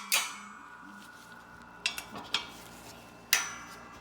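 Metal parts clinking together during hydraulic-press work on a motorcycle clutch hub: four sharp metallic clinks, the first and last loudest, each followed by a short ring.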